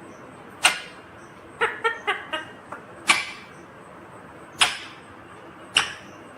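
Indian ringneck parrot calling: four sharp, loud squawks spaced a second or more apart, with a quick run of short chattering notes about two seconds in.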